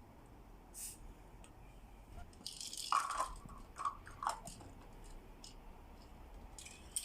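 Aerosol spray-paint can giving short hissing bursts, a brief one about a second in and a longer one around two and a half seconds in, followed by a few crunchy clicks and knocks as the can and part are handled.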